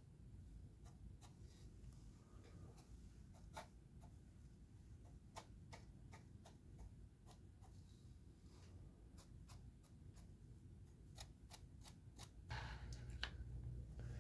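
Near silence: faint, irregular light ticks over a low room hum while a flat brush works a weathering wash onto a plastic model ship's hull. About twelve and a half seconds in, louder handling noise starts as the model is lifted off its stand.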